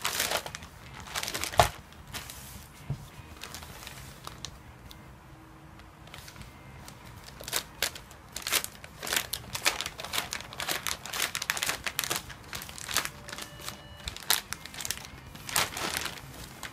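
Thin plastic courier mailer bag being torn open and handled: irregular crinkling and rustling of the plastic, with a sharp snap about a second and a half in and a quieter lull in the middle.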